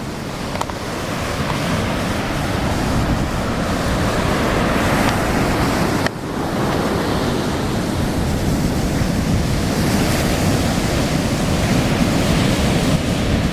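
Ocean surf breaking and washing onto a sandy beach in a steady roar, the choppy, disordered waves of a hurricane swell under an onshore wind, with some wind on the microphone. The sound dips briefly about six seconds in.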